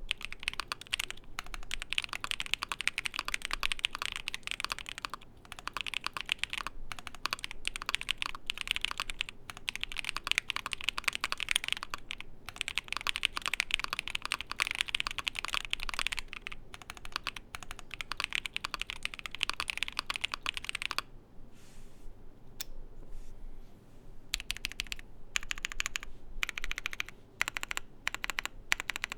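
Steady fast typing on an ai03 Vega mechanical keyboard with lubed Moyu Black linear switches in a foamed polycarbonate plate, a dense run of keystroke clacks. The typing mostly stops for about three seconds near three-quarters of the way through, then starts again.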